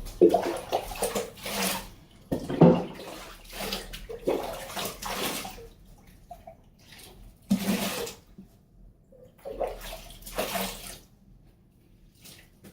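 Bath water splashing and pouring in a tub in about six separate bursts, each lasting from under a second to about two seconds, with quieter gaps between them. The splashing grows sparser and fainter near the end.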